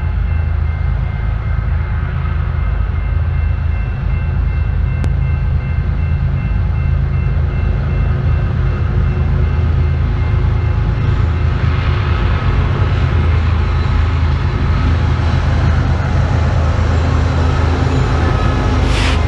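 Approaching freight train led by BNSF diesel locomotives: a steady low rumble that grows louder and fuller from about halfway as the train draws near, peaking as the lead locomotive passes close near the end.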